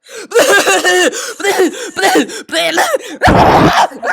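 Very loud fake coughing and vocal noises through a voice-chat microphone, in quick broken bursts, with a harsh, noisy cough blast a little over three seconds in.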